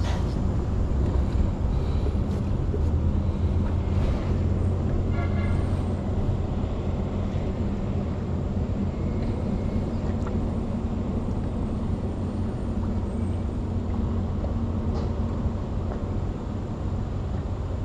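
A motor engine running steadily at a constant pitch: an even low hum that does not rise or fall.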